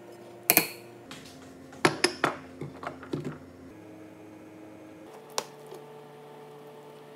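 Metal spoon clinking and tapping against a stainless steel mixing bowl as sauce is stirred together, a handful of sharp clinks and clicks, over a steady low hum.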